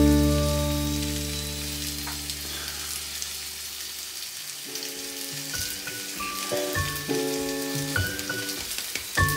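Background music: a held chord fading away over the first few seconds, then new plucked notes about halfway through. Under it runs a faint, even crackling hiss.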